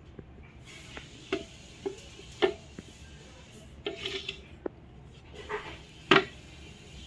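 Irregular metal clinks and knocks, about eight in all at uneven intervals, the loudest near the end, as of metal parts being handled and set down.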